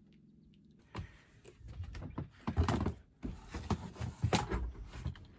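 Irregular knocks, thumps and rustling, starting about a second in, from someone moving about and bumping against things inside a small boat cabin.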